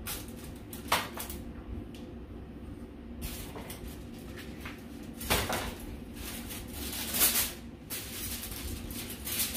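Kitchen clatter of dishes and a cupboard being handled: a sharp knock about a second in, then several short clattering and scraping noises later on.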